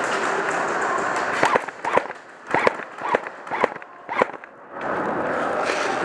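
Airsoft guns firing: a string of about nine sharp, irregular pops over two to three seconds, between stretches of a steady rushing noise.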